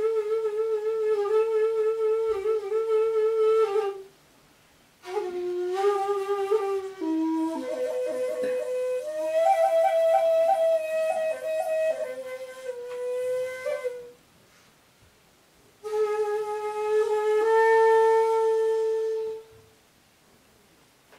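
Solo shakuhachi playing honkyoku: three long, breathy phrases with vibrato, separated by breath pauses. The middle phrase climbs and carries quick repeated finger ornaments before stepping back down. The last settles on a long held note that fades out about a second before the end.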